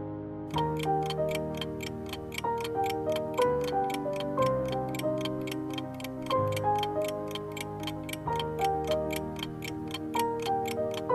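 Clock-like ticking sound effect, about four ticks a second, marking a countdown timer, starting about half a second in over background music with a stepping keyboard melody.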